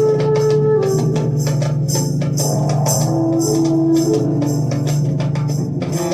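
Live ensemble music: long held, organ-like chords that change every second or so over busy hand percussion with jingling, tambourine-like strokes.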